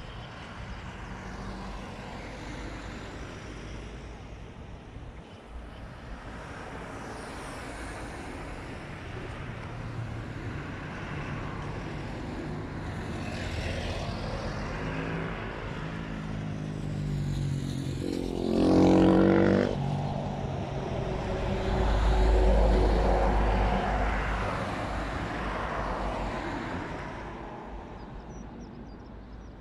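Road traffic passing close by, cars and a van one after another over a steady background hum. A short loud pass about two-thirds of the way in, its pitch sliding down as it goes by, is followed soon after by a longer, deeper one that is heavy in the bass.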